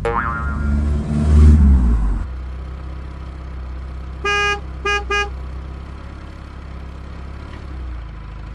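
Plastic toy bus wheels rumbling over concrete as it is pushed by hand, with a short rising boing sound effect at the start. After the rumble stops, there are three car-horn beeps about halfway through: one longer beep, then two short ones.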